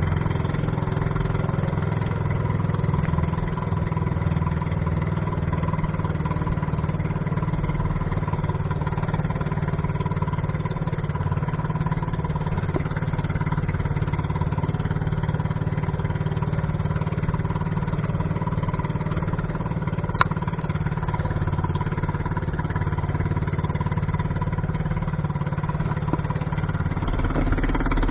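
Boat engine running steadily at a constant speed, with a continuous low hum.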